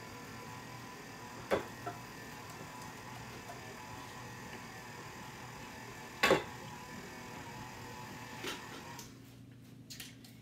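KitchenAid stand mixer running at low speed, its paddle working oats into cookie dough: a steady hum that stops about nine seconds in. Three sharp knocks sound over it, the loudest about six seconds in.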